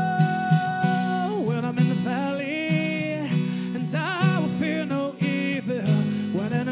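A man sings over a steadily strummed acoustic guitar. He holds one long note for about the first second, then moves into sliding, wavering sung phrases.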